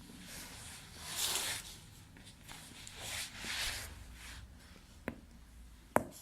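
Two soft rustling hisses, then two sharp cracks of a back cracking: a faint one about five seconds in and a loud one near the end.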